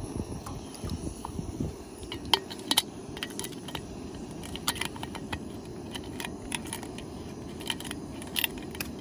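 Scattered light metallic clicks and clinks from a stainless steel camping pot on a gas cartridge stove, over a steady low rumble.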